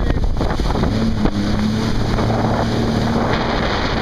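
Jet ski running at speed over choppy water: a steady engine hum, settling from about a second in, under heavy wind buffeting on the microphone and the rush of spray off the hull.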